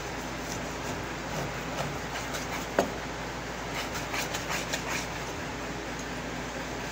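Cleaver slicing raw pork on a plastic cutting board: one sharp knock of the blade on the board about three seconds in, then a quick run of lighter clacks about a second later, over a steady background noise.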